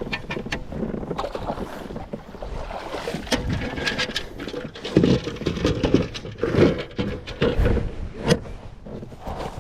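Irregular clicks and a few heavier knocks from gear and movement on a plastic fishing kayak, with water noise around the hull.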